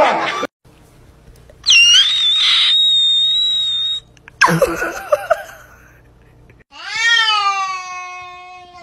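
Cats meowing. First comes a high, thin cry held for about two seconds, then a short cry, then about seven seconds in a long, drawn-out meow that rises and then holds steady.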